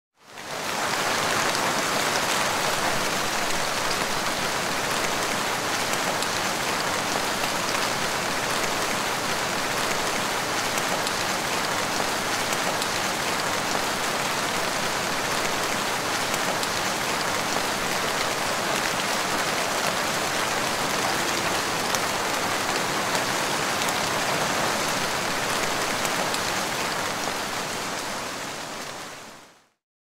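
Heavy rain falling steadily, an even hiss that fades in at the start and fades out over the last couple of seconds.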